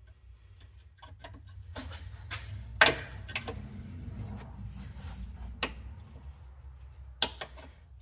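Scattered clicks and knocks, the loudest a sharp knock about three seconds in, over a low steady hum.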